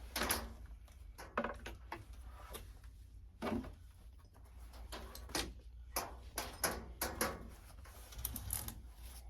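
Irregular clicks, knocks and rustles of things being handled and taken out of a closet, with sharper clacks about a third of a second in, about halfway through and around two-thirds of the way, over a low steady hum.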